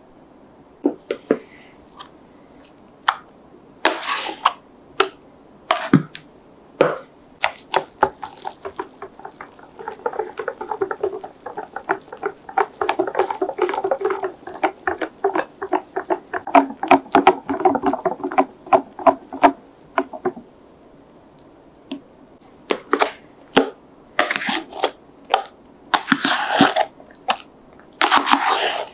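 Wire whisk beating batter in a glass bowl: a run of rapid, even clinks of wire against glass for about ten seconds in the middle. Before and after it come scattered taps and scrapes of a spatula and cup as the meringue is checked and then spooned into the bowl.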